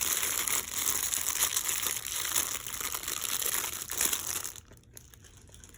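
Plastic packaging crinkling and rustling as it is handled, stopping about three-quarters of the way through.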